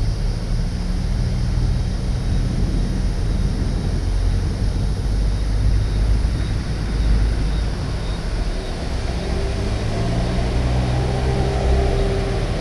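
A car being driven, its engine running under a steady rush of road noise; the engine note rises a little about nine seconds in.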